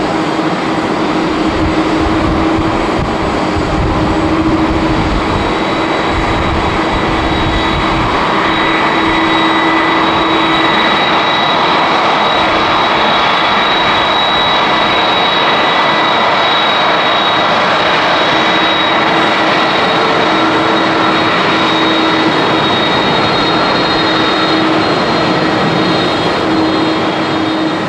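Airbus A350-900's Rolls-Royce Trent XWB jet engines running at taxi power: a steady rushing noise with a high, even whine laid over it.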